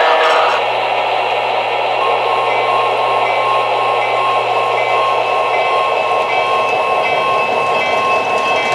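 O-gauge three-rail model train running along the track: a steady whir of the motor and rolling wheels. A low hum underneath drops out about two-thirds of the way through.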